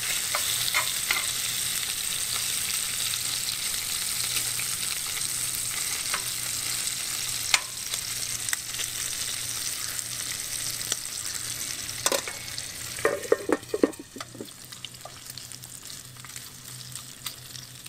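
Bacon pieces sizzling steadily as they fry in a skillet on a propane camp stove, being stirred. A few sharp clicks come around two-thirds of the way through, and the sizzle grows fainter near the end.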